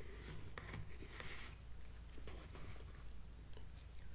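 A metal fork scraping and clicking against a plastic TV-dinner tray while cutting out a piece of brownie. Faint and scratchy, loudest a little over a second in.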